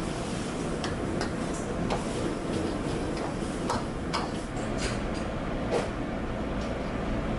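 Steel ladle and spatula clinking and scraping against a wok during stir-frying: scattered sharp metal clicks over a steady low rush of noise.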